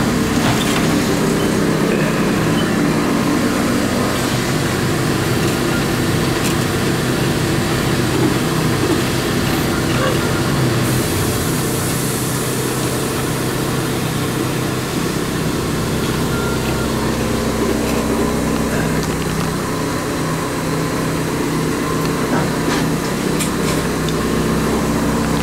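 Large DIY 3D printer running: a steady mechanical hum with several steady tones from its stepper motors and cooling fans, shifting a little in pitch as it works, with a deeper hum joining about halfway through.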